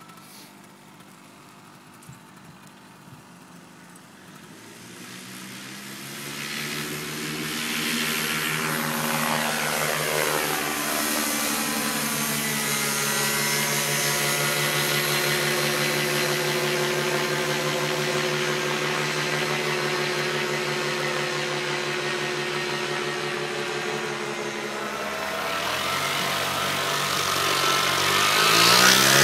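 After a few quiet seconds, a paramotor engine comes up and runs steadily, then revs up to a higher, louder pitch near the end for the takeoff run.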